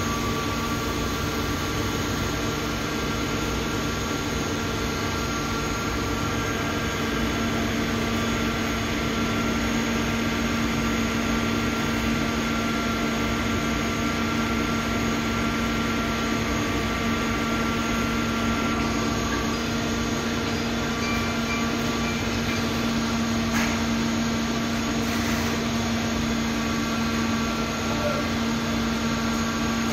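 Cotton-processing machinery running with a steady, even hum and hiss and a constant low tone. A couple of faint knocks come in the second half.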